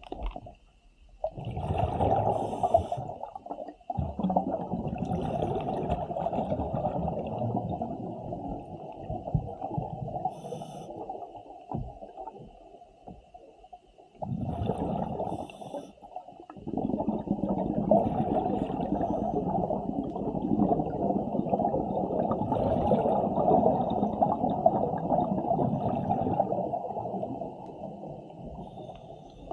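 Underwater scuba breathing through a regulator: long stretches of exhaled bubbles separated by short quiet pauses, with a faint steady high tone behind.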